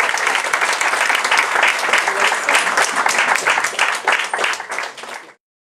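Audience applause, a dense clatter of many hands clapping, easing slightly and then cut off abruptly near the end.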